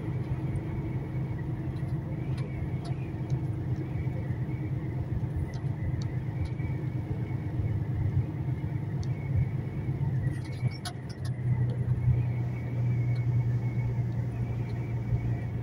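Truck engine and road noise heard inside the cab while driving: a steady low rumble that settles into a more even hum about eleven seconds in, with a few light clicks around ten to eleven seconds in.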